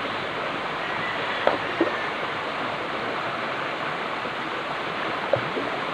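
Running stream water rushing steadily over rocks, with a few brief splashes about a second and a half in and again near the end.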